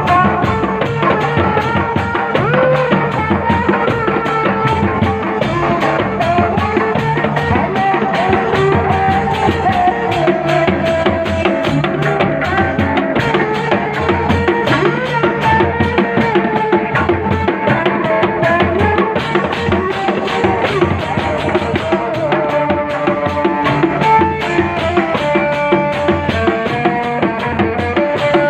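Sundanese dogdog street ensemble playing: large barrel drums and a hand drum beat a steady rhythm, with hand cymbals clashing and a wavering melody line above.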